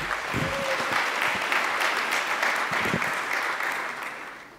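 Audience applauding, a dense patter of many hands clapping that dies away over the last second.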